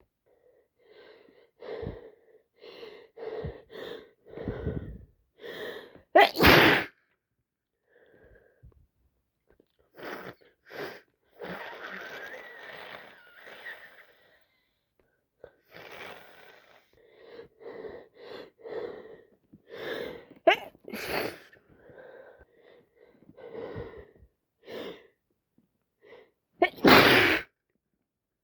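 Person with a head cold sneezing over and over, with short sniffly breaths between the sneezes. The two loudest sneezes come about six seconds in and near the end.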